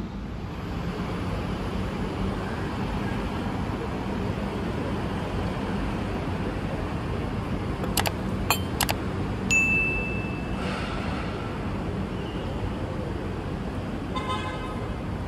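Steady city traffic noise. About eight seconds in come a few sharp clicks and then a single ding, the sound effects of an animated like-and-subscribe overlay.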